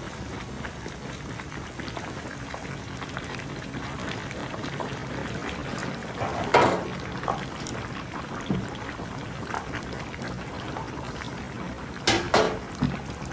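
A pot of hot liquid on the stove bubbling steadily, with brief louder splashing or clattering bursts about six and a half seconds in and again near the end.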